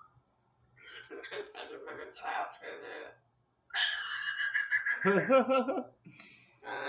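Moluccan cockatoo babbling in mumbled, speech-like chatter, then a loud call held on one pitch about four seconds in, followed by laughter.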